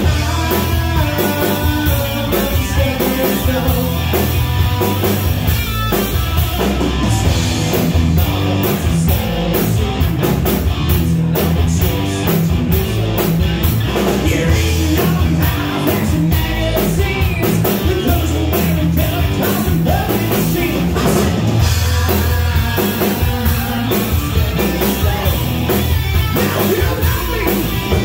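Live rock band playing: distorted electric guitar, electric bass and a drum kit keeping a steady beat, loud and dense, as heard in the room.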